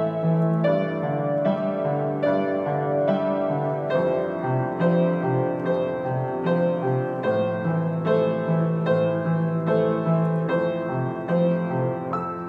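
Solo grand piano playing a slow, tender melody, notes struck at an even unhurried pace over a repeating bass line.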